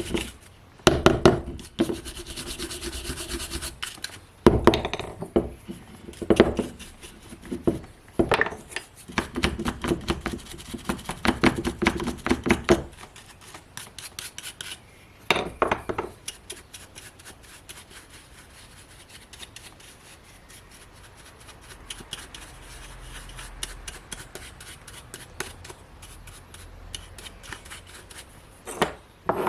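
Hand-worked scraping and rubbing on chainsaw parts during maintenance, in bursts of quick strokes through the first half, with one more burst a little past halfway and then little but a quiet background.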